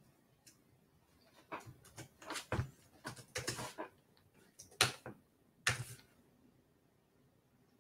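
Quiet, irregular clicks and knocks, with a brief rustle in the middle, from something being handled off-camera.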